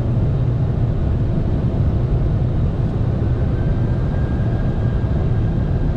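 Steady low rumble of airflow and engine noise on the flight deck of a Boeing 747-400ERF freighter on approach. A faint, steady high tone joins about three seconds in.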